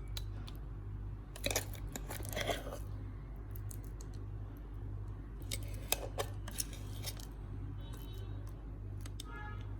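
A spoon scraping thick ground black-lentil batter out of a mixer-grinder jar into a bowl: scattered scrapes and light clicks over a steady low hum.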